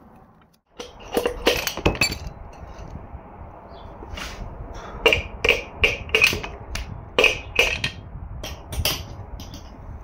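Sharp metal clanks and clinks, several at a time, coming in clusters: a piston and connecting rod being worked out of the cylinder bore of a disassembled engine block.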